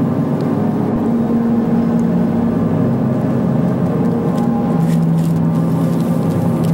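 Background music with sustained low droning notes that change pitch a couple of times.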